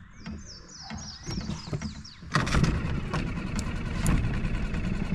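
A bird sings a quick run of falling high chirps. About two seconds in, a boat's outboard motor starts abruptly and keeps running steadily.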